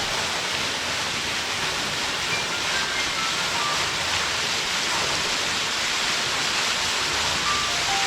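Steady rushing roar of a waterfall, even and unbroken, with a faint melody of single descending notes over it.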